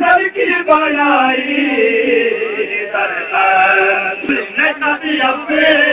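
A man's voice reciting a naat, an Urdu devotional poem in praise of the Prophet Muhammad, in an unaccompanied melodic chant through a microphone. He draws out the words in long held, gliding notes, with a short break between phrases about three seconds in.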